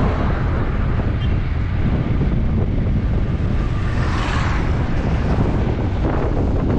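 Wind buffeting the camera's microphone in a steady low rumble while riding, with a hissing swell about four seconds in.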